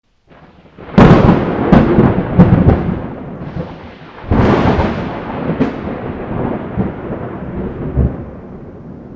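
Thunder: a sharp crack about a second in with a few more cracks, then a second clap a little after four seconds, each followed by a long rumble that slowly dies away.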